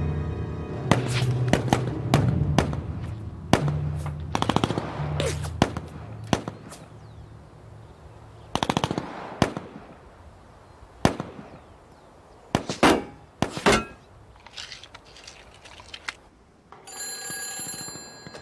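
Gunfire in a street battle: scattered rifle shots and short bursts, each echoing off the buildings, over a low dramatic film score that fades out in the first few seconds. Near the end a telephone starts ringing.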